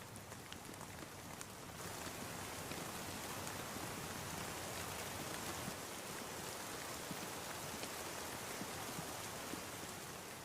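Steady rain falling. It grows heavier about two seconds in and eases again near the end.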